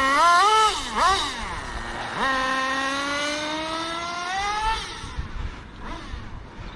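Small nitro (glow-fuel) engine of a 1/10-scale GS Racing Vision RC truck: quick throttle blips in the first second, then a long run rising steadily in pitch as the truck accelerates away, fading out after about five seconds.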